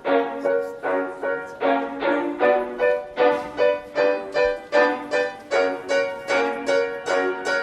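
Background music: an instrumental intro of short, evenly spaced notes repeating a simple melodic figure, about two or three notes a second.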